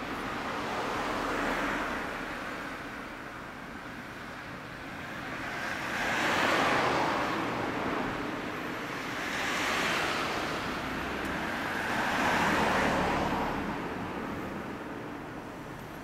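Road traffic going past: about four vehicles pass one after another, each a rush of tyre and road noise that swells and fades over a few seconds.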